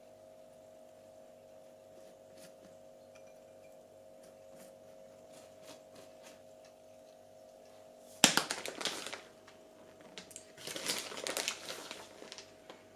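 Crinkling, rustling noise: a sudden loud burst lasting about a second, then after a short pause a second, longer spell of crinkling, over a faint steady hum.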